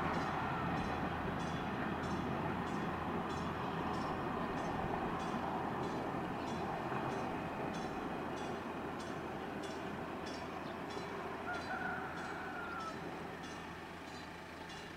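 Diesel passenger railcar running away down the line, its engine and wheel noise slowly fading. A regular high ticking, about three a second, runs over it, and a brief faint tone sounds near the end.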